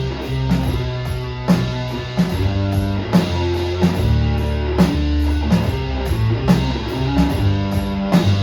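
Live band playing an instrumental passage of a song: guitar and bass over a drum kit keeping a steady beat.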